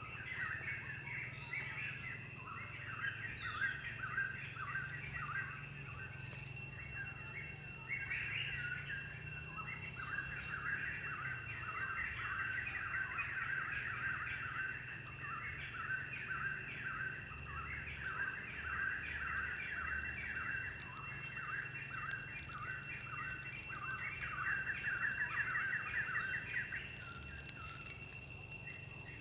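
Forest ambience: birds chirping in quick, repeated short notes throughout, over steady high-pitched insect tones.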